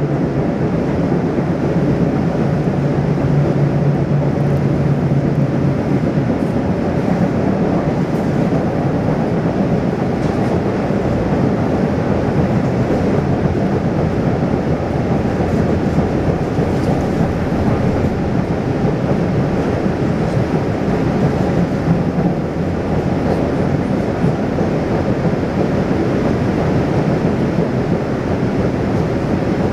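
2007 Siemens subway car with GE traction motors running on the MBTA Blue Line, heard from inside the car: a steady rumble of wheels on the rails, with a low hum for the first several seconds that then fades.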